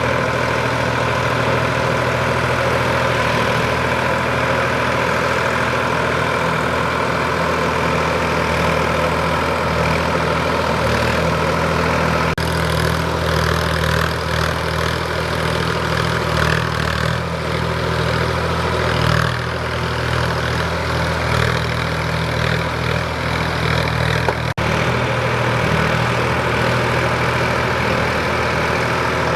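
Sonalika DI 745 III tractor's three-cylinder, naturally aspirated diesel engine running steadily, with brief breaks twice.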